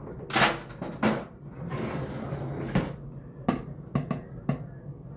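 Several separate knocks and clatters of kitchen items being handled and set down on a counter.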